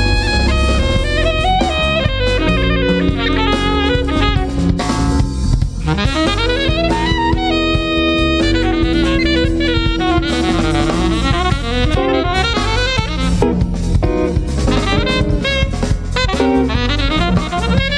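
Live jazz-fusion band playing: a saxophone plays a fast melodic solo line over a drum kit and bass, holding one long note about halfway through.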